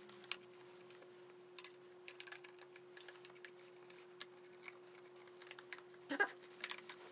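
Scattered light clicks and taps of the plastic body shell of a Huina 580 RC excavator being fitted back onto its chassis by hand, with a short louder rattle about six seconds in. A faint steady hum runs underneath.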